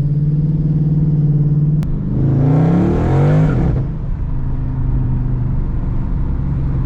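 Dodge Charger Scat Pack's 392 Hemi V8, fitted with a Hellcat airbox, running steadily, then about two seconds in revving hard under acceleration with a rising pitch. After a second and a half to two seconds it drops back to a steady run.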